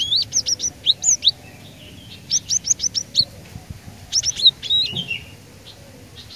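Cinereous tit (glatik batu) calling in three quick bursts of sharp, high, down-slurred chirps, a few notes each, about a second apart.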